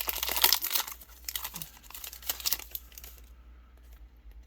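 Foil trading-card booster pack wrapper crinkling as it is handled and torn open, loudest in the first second and dying away after about three seconds.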